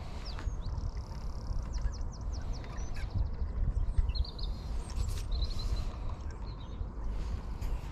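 Small songbirds singing, with repeated chirps and several quick trills, over a steady low rumble.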